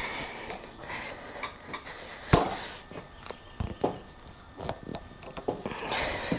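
Hand work on a motorcycle handlebar: scattered small clicks and knocks with some scraping, and one sharper knock about two and a half seconds in.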